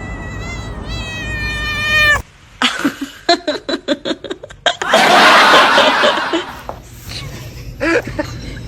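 A cat's long drawn-out yowl, a caterwaul of about two seconds that rises a little and then bends down as it cuts off. It is followed by a quick run of short pulsed sounds and about a second and a half of loud harsh noise, with short meow-like calls near the end.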